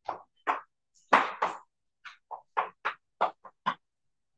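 Chalk writing on a blackboard: about a dozen short taps and strokes as a line of words is written, coming roughly three a second in the second half.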